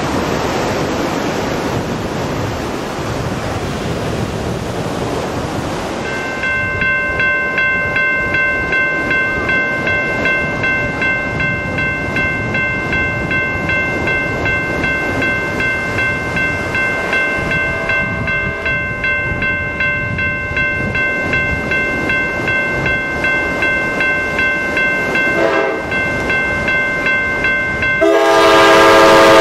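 Surf washing onto the beach, then from about six seconds in a railroad crossing warning bell ringing in a steady, even rhythm as an Amtrak Pacific Surfliner train approaches. The train's horn sounds faintly twice and then blows loud near the end.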